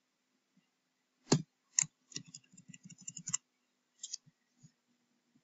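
Computer mouse and keyboard clicks: two sharp clicks about a second in, then a quick run of about ten light clicks, and a few more scattered clicks near the end.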